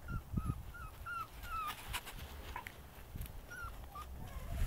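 West Siberian Laika puppy whimpering: a quick run of short, high cries, then two more near the end, over low scuffling thumps of the puppies tussling.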